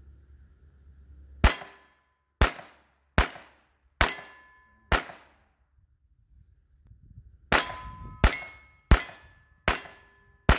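Kel-Tec CP33 .22 LR pistol fired ten times in two strings of five, about one shot a second, with a pause of about two and a half seconds between the strings. Many shots are followed by a short metallic ring from the steel targets being hit.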